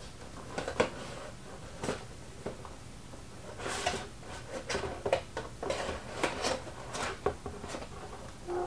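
Cardboard Funko Pop box being opened by hand: a few light taps and clicks, then from about halfway a run of rustling and scraping as the flap is worked open and the packaging is pulled out.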